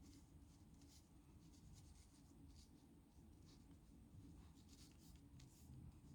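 Faint scratching of a pen nib on paper in short, irregular strokes as characters are written out by hand.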